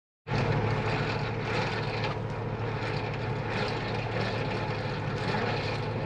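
A vehicle engine running steadily, a continuous low drone at an even pitch that starts about a quarter second in.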